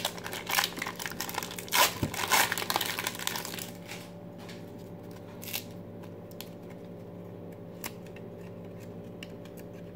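Foil card-pack wrapper crinkling and tearing as it is ripped open, for about the first four seconds. After that it is much quieter, with a few faint clicks as the cards are handled.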